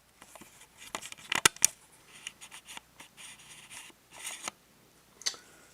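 Irregular clicks, light knocks and short scrapes of parts and hand tools being handled during work on the motorcycle, with a cluster of sharp clicks about a second and a half in.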